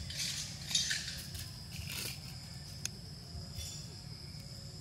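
Steady high-pitched insect drone over a low rumble, with a few short scratchy rustling noises, the loudest just under a second in.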